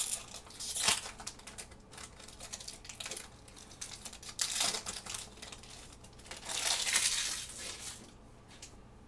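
Foil wrapper of a Magic: The Gathering collector booster pack crinkling and tearing as it is opened by hand. There are three main bursts, the longest about two-thirds of the way in, with light rustling between.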